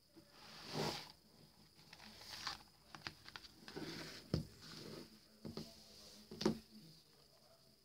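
Hands moving a tablet and a notebook about on a wooden tabletop: scattered light knocks, taps and rustles, with the sharpest knocks about four and a half and six and a half seconds in.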